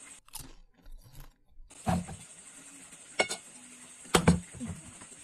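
Plastic bottle tossed in a bottle-flip and landing on the floor: three short knocks a second or so apart, the last one the loudest.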